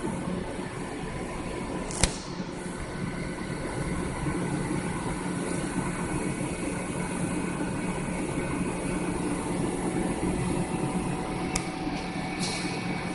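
Hyupshin Drill Master 5000 gantry drilling machine running with a steady mechanical hum. A sharp click comes about two seconds in, and a fainter click and a brief high hiss come near the end.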